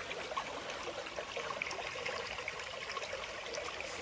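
Small stream of water trickling and burbling steadily.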